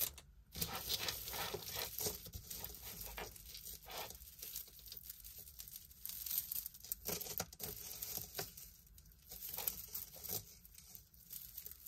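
Beaded costume-jewelry necklaces being handled and untangled by hand: small irregular clicks and rattles of beads and chain, with rustling.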